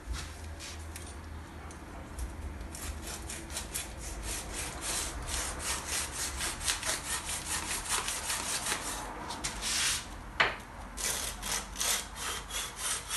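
Sandpaper rubbed back and forth by hand on an alternator rotor shaft, scrubbing off old glue where the slip-ring sleeve seats. Quick rasping strokes of about three a second grow stronger a few seconds in and break off briefly near the end.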